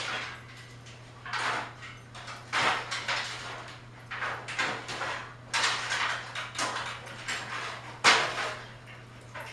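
Kitchen handling noises: a string of knocks, scrapes and rustles as cupboard doors and utensils are handled, over a steady low hum.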